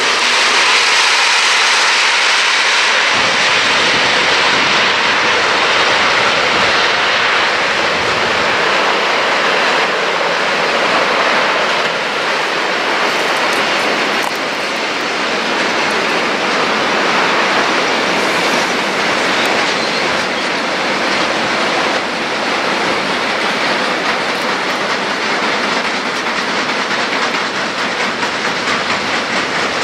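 Long freight train of double-deck car-carrier wagons loaded with cars rolling past, with the steady noise of its wheels running over the rails.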